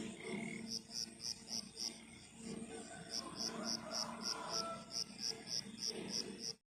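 An insect chirping in a steady run of short high-pitched pulses, about four a second, pausing briefly partway through, over a faint low background hum. It cuts off abruptly just before the end.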